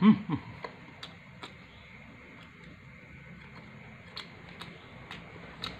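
A short falling hum from the man right at the start, then a man chewing a bite of homemade pizza, with scattered faint crunches and clicks from the crisp crust.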